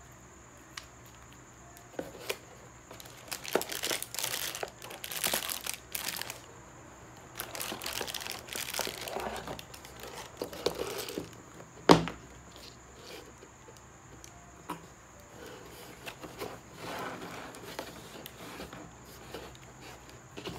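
Laptop packaging being handled: cardboard, a moulded pulp insert and wrapping rustle and crinkle in several bursts, with one sharp knock about twelve seconds in, the loudest sound.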